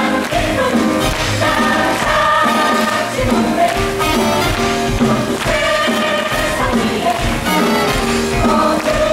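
Stage musical song: several voices singing together over instrumental backing.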